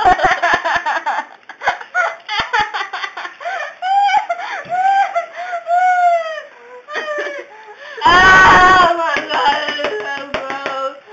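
A girl's wordless laughing, squealing and wailing cries, with pitch sliding up and down, and one loud shriek about eight seconds in. She is reacting to a Kool-Aid Fizzies tablet foaming in her mouth.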